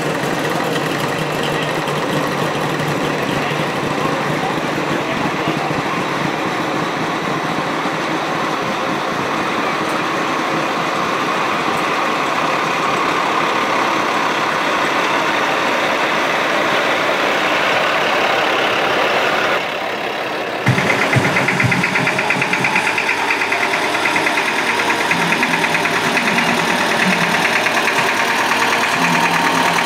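Engines of parade vehicles running close by: a vintage bus drives past, and after a cut about two-thirds of the way in, a tractor runs steadily with a rapid, even beat as it pulls a float.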